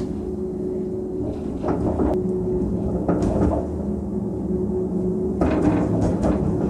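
Emosson minifunicular car running on its steep track, heard from inside the car: a steady mechanical hum with a held drone, with scattered rattles and knocks and louder clattering near the end.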